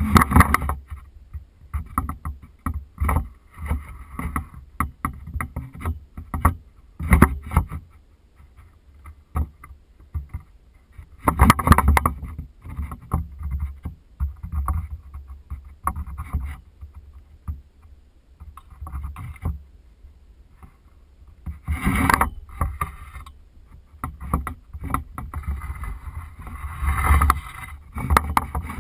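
Low, irregular buffeting of rotor wash and wind on a drone-mounted GoPro's microphone, coming in gusts with several louder surges.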